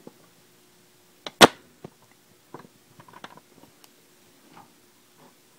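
Handling noise as a drawing page is moved on a desk: one sharp knock about a second and a half in, then scattered soft taps and rustles.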